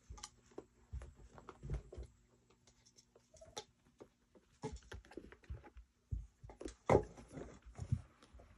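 Kittens playing on a carpeted floor, batting and tumbling with a pair of sneakers and toys: irregular soft thumps, scuffs and light clicks, the loudest thump about seven seconds in.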